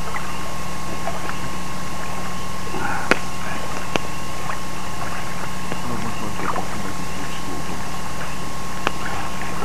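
Campfire giving a few sharp pops, the loudest about three seconds in, others about four and nine seconds in, over a steady background hiss and hum.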